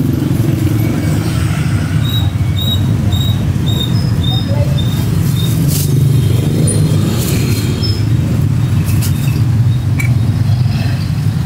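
Steady low rumble of street traffic, with a run of short high chirps or squeaks a couple of seconds in and light crinkling of plastic sheeting being lifted later on.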